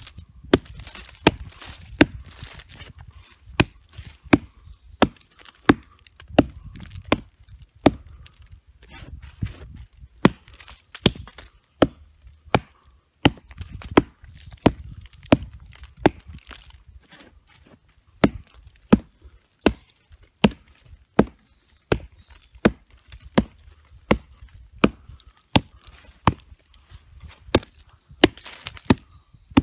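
Homemade knife chopping into a dead log, a sharp woody knock with each stroke. The strokes come irregularly with rustling between them at first, then settle into a steady rhythm of about three every two seconds past the middle.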